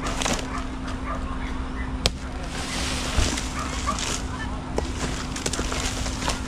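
Domestic fowl calling, with a steady low hum and a sharp click about two seconds in.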